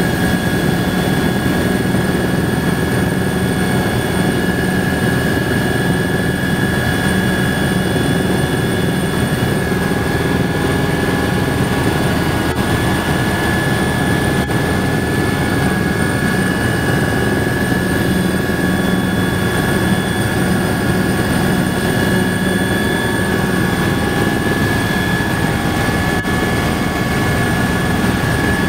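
Helicopter cabin noise in flight, heard from inside: a steady, dense engine and rotor noise with a high whine running through it, unchanging throughout.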